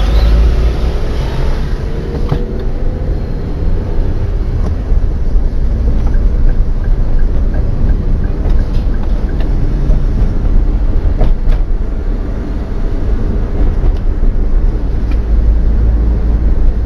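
Steady low rumble of a car driving, heard from inside the cabin through a dashcam microphone: engine and road noise with a few faint ticks.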